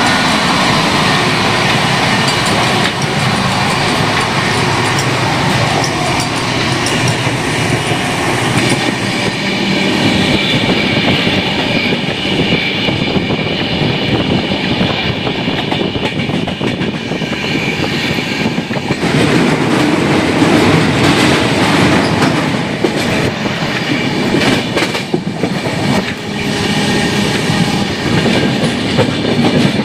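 Indian express passenger train running at speed, heard from inside the coach vestibule: a steady rumble and rush of wheels on rail with clickety-clack. Near the end comes a short spell of sharper clatter.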